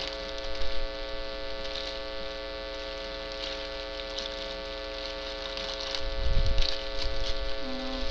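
Steady electrical mains hum, with faint crinkling and clicking as toy packaging and parts are handled. A cluster of low bumps and knocks comes near the end.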